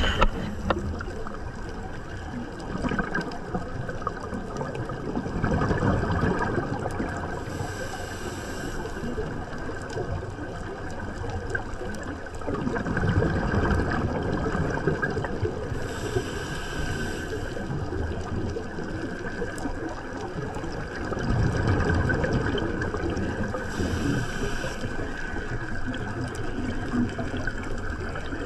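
A scuba diver's breathing, heard underwater: the regulator and exhaled bubbles, with one breath cycle about every eight seconds over a steady wash of water noise.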